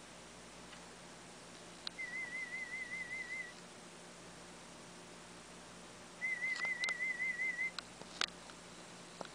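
Audiometer warble tones in a sound-field hearing test: a high tone with a wavering pitch, sounded twice for about a second and a half each, a few seconds apart. A few sharp clicks follow the second tone. The tones are test signals played to a cochlear implant user to find how soft a sound she can hear.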